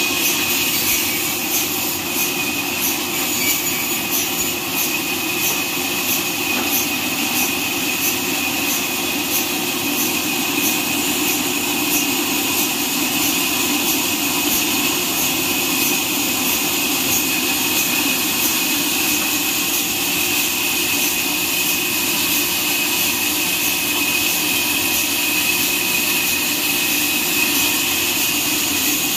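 Horizontal band sawmill running and sawing a neem log, giving a steady high whine. A faint regular ticking sits over it for the first dozen seconds.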